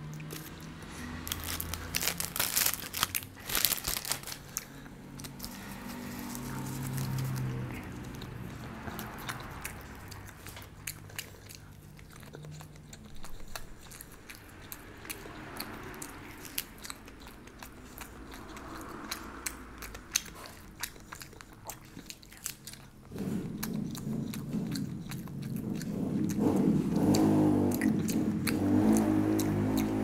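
A person biting and chewing food close to the microphone, with sharp crunchy bites a few seconds in and softer chewing after them. Background music comes in about two-thirds of the way through and gets louder.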